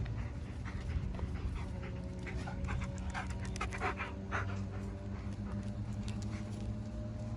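A dog panting in quick, uneven breaths, busiest in the middle of the stretch, over a steady low hum.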